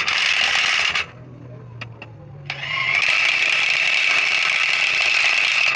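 A workshop tool running in two loud, hissing bursts: one stops about a second in, and a longer one starts about two and a half seconds in and cuts off suddenly near the end.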